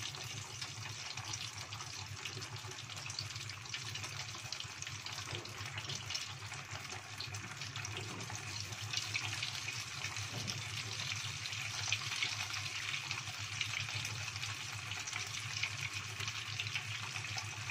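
Hot oil sizzling and crackling steadily as egg-dipped tofu skewers deep-fry in a small pot, growing a little louder about nine seconds in.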